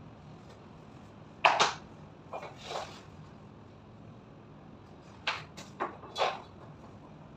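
Short scraping and clattering handling noises from working on WPC wall slats and tools: a sharp one about a second and a half in, two softer ones just after, then three more quick ones about five to six seconds in.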